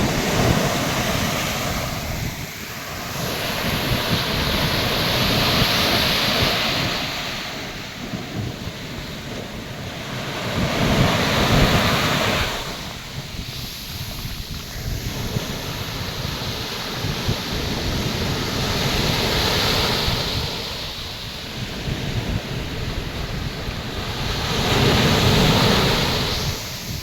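Atlantic Ocean surf breaking on a beach: the rush of water swells and fades as each wave crashes, about four times, several seconds apart.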